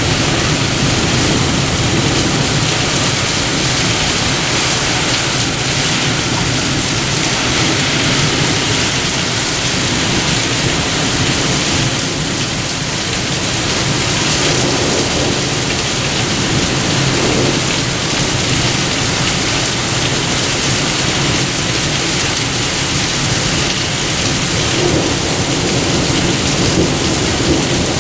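Heavy rain falling in a severe thunderstorm, a dense, steady downpour.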